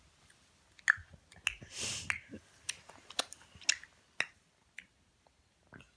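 A baby making clicking and smacking noises with her mouth: a dozen or so sharp, irregular clicks, with a breathy puff about two seconds in, dying away after about four seconds.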